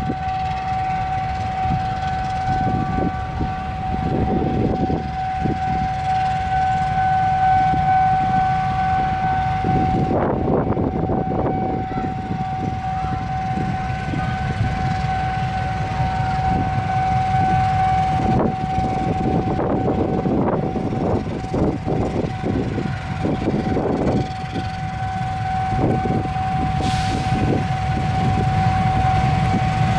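Diesel-electric locomotive engine running under load as it hauls a long passenger train out of the station toward the listener, with irregular knocks of wheels running over rail joints and points, and a steady high tone held throughout. A short hiss comes about 27 seconds in, and the sound grows louder near the end as the locomotive comes close.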